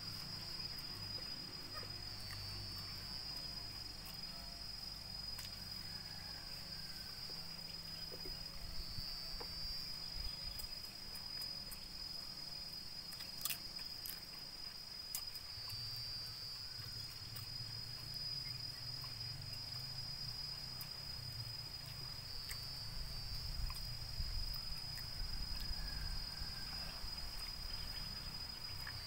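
Insects trilling steadily at one high pitch, swelling louder about every seven seconds, over a low steady hum; one sharp click about halfway through.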